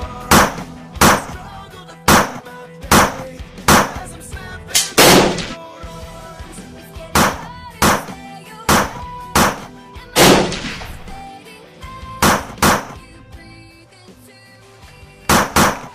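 A string of pistol gunshots, about one a second with a short pause late on, each a sharp crack with a brief echoing tail, over quiet background music.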